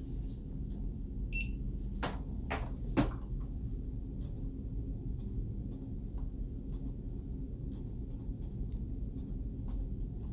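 A short electronic beep from hospital infusion equipment about a second in, then three sharp knocks and scattered light clicks as the equipment is handled, over a steady low room hum.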